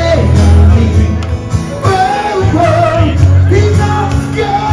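A song with a singing voice over a steady, heavy bass line.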